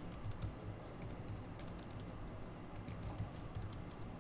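Faint typing on a computer keyboard: an irregular run of quick key clicks.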